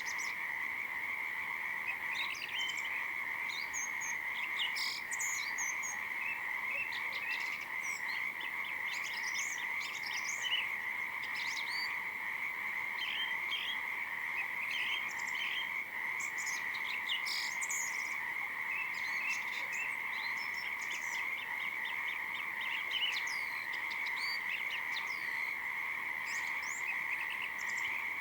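A steady, unbroken chorus of calling animals, with many short, high bird chirps scattered over it.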